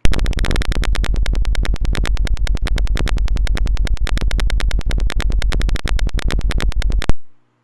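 Simulated piezo buzzer of a 555-timer door alarm sounding a loud, rapid pulsing buzz, roughly ten pulses a second. It cuts off suddenly about seven seconds in because the alarm runs only on the charge of its capacitor, which has run out.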